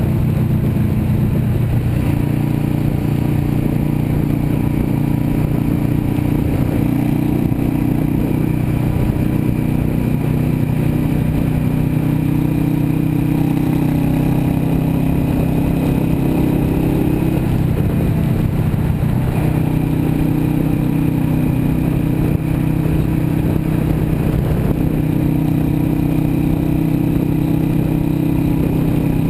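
Yamaha V Star 650 Custom's air-cooled V-twin engine running steadily at highway speed, with wind and road noise.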